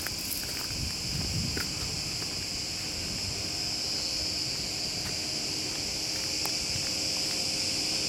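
Cicadas shrilling in a steady, high-pitched chorus, typical of a hot summer day in pine trees.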